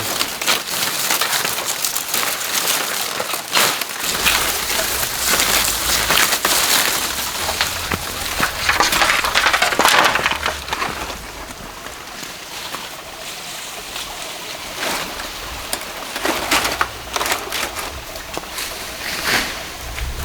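Irregular crunching and rustling noises, clustered most thickly in the first half and thinning out later.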